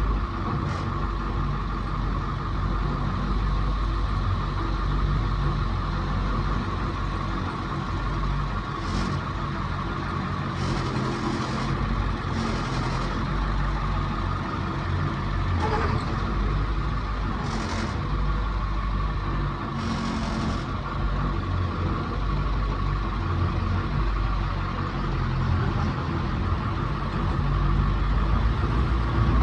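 A vehicle engine running steadily, with several short hisses in the middle.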